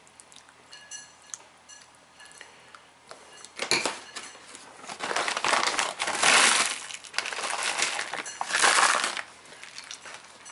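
A spoon clinking lightly in a soup bowl, then a plastic bag of croutons crinkling and rustling as they are poured out, in several loud bursts from about three and a half to nine seconds in.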